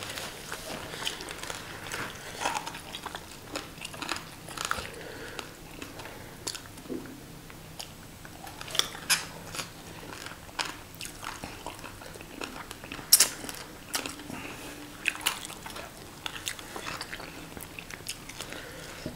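Close chewing and biting of crisp fried tilapia, with fish bones being crunched: irregular short crunches and clicks, the sharpest about two-thirds of the way through.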